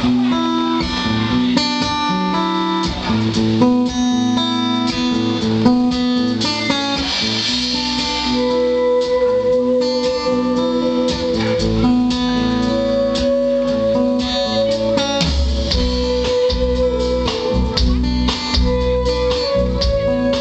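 Live band playing a guitar-led instrumental intro, with several guitars and a drum kit. The deep bass end fills in about halfway through.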